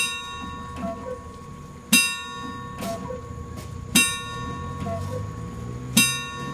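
The world's largest cuckoo clock striking eleven: a loud bell-like strike every two seconds, four in this stretch, each ringing on, with a softer two-note falling cuckoo call after each one.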